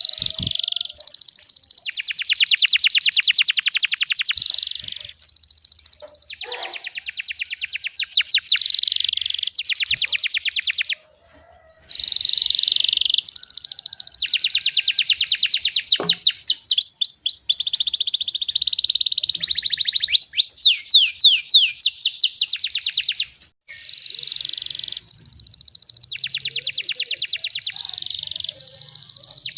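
Domestic canary singing continuously in rapid-fire trills: long runs of fast repeated high notes alternating with quicker sweeping notes, the song breaking off briefly twice.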